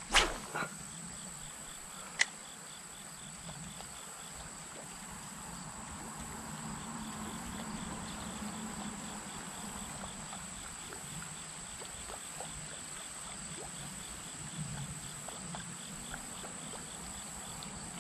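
Insects singing steadily: a constant high-pitched buzz, with a faint rapid pulsing trill beneath it. Two sharp clicks stand out, one at the start and one about two seconds in.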